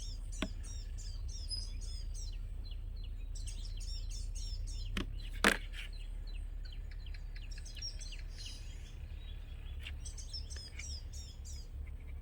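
Small birds chirping in quick repeated series of high notes, over a steady low hum. A few sharp clicks break in, the loudest about five and a half seconds in.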